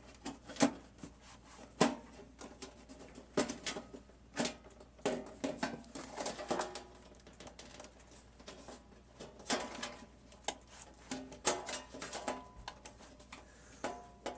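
Sheet-metal top cover of a DVD recorder being worked loose by hand: irregular clicks and clanks, some with a brief metallic ring, as the cover catches on the chassis.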